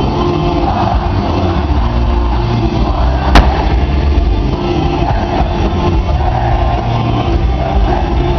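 Live band music played loud through the PA, with heavy deep bass, heard from within the crowd. A single sharp click about three and a half seconds in is the loudest moment.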